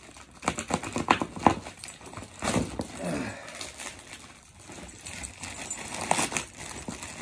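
Packing tape and a plastic mailer being torn open by hand: irregular rips, tugs and crinkling, with a longer tearing rip about two and a half seconds in.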